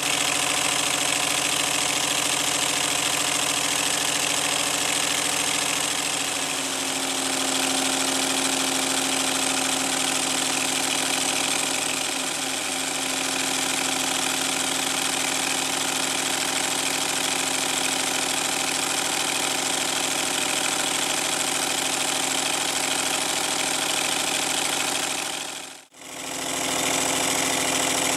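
A model steam locomotive chassis runs free on a test stand, its cylinders and valve gear beating very quickly and steadily with a strong hiss. The pace sags twice and picks up again. Near the end the sound cuts out for a moment.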